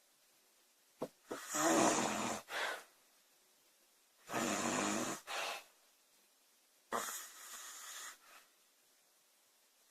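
A woman snoring: two loud snores with a low buzz, about three seconds apart, then a softer, breathier one near the end.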